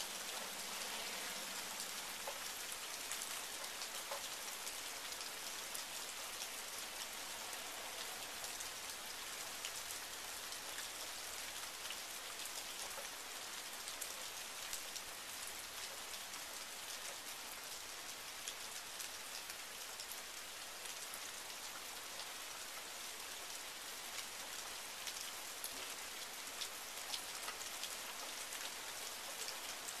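Steady rain falling: an even hiss dotted with many small, sharp drop ticks.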